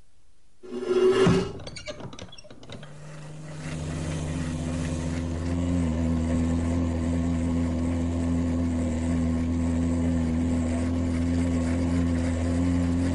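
A sudden loud clattering burst about a second in, then a steady machine-like drone that builds up over the next two seconds and runs on evenly, with a low hum and a few steady overtones above it, like a motor running.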